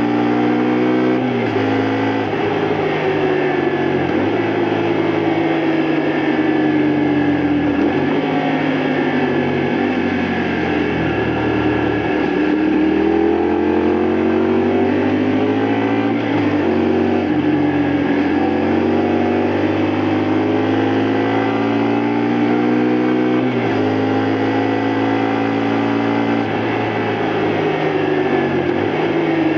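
Honda Varadero 125's small V-twin four-stroke engine under way on the road. The revs slowly fall to a low point around the middle, then climb again, with several sudden steps in pitch from gear changes.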